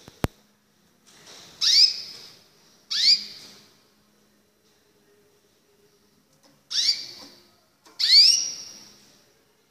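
Recessive white canary giving four short, rising call notes in two pairs, the notes of each pair about a second apart. A single sharp click comes just after the start.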